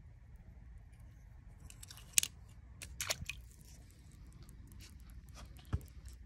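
Faint scattered clicks and taps over a low steady rumble, the sharpest about two seconds in and a few more around three seconds and near the end.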